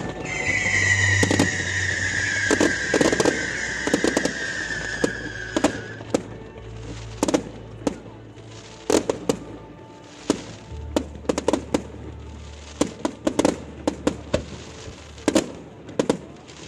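A fireworks display: a long whistle falls slowly in pitch over the first five or six seconds, then come rapid bangs and crackles of bursting shells, several a second. Music with steady low notes plays underneath.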